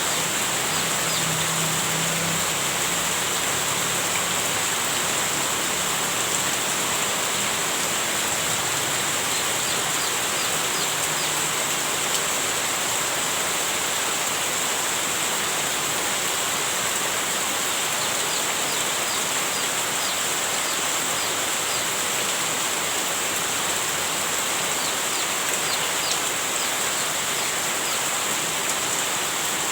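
Heavy rain falling steadily, an even hiss. A few short high chirps come in small runs about a third of the way in, past halfway, and near the end.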